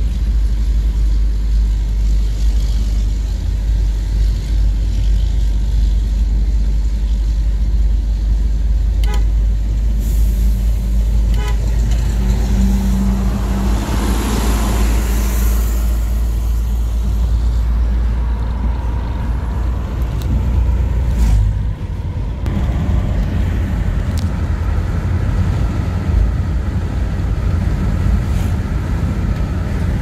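Road noise heard inside a moving car: a steady low rumble of engine, tyres and wind. Near the middle, another vehicle rushes past and a short horn toot sounds.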